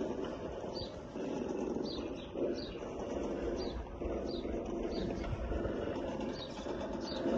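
Small bird chirping outdoors: short high chirps repeated about once or twice a second over a steady low background noise.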